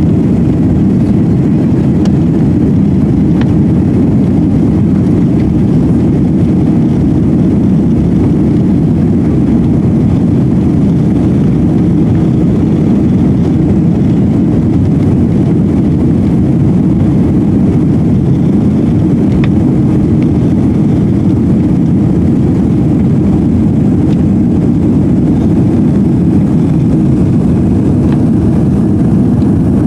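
Cabin noise of an Airbus A340-300 climbing after takeoff: the loud, steady roar of its four CFM56 engines and rushing air, heard inside the cabin, deep and even with no change in pitch.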